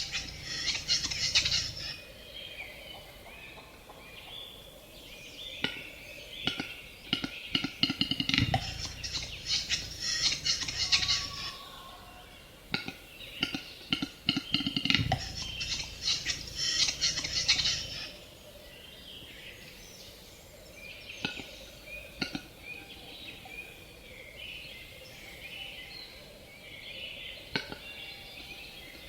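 A capercaillie calling up close: bouts of rapid clicking and scraping notes with low thumps under them. Three loud bouts come a few seconds apart, then quieter scattered clicks follow.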